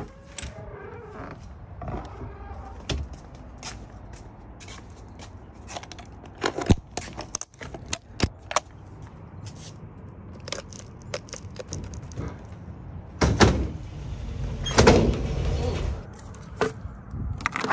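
Handling clicks, clunks and knocks: a house door opening, then the metal latches, support arm and rear door of a Volkswagen Beetle's aluminium camper shell being worked, with two louder clatters near the end.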